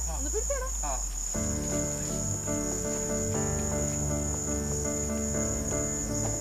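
A steady, high-pitched chorus of night insects. Soft background music with held chords comes in about a second and a half in.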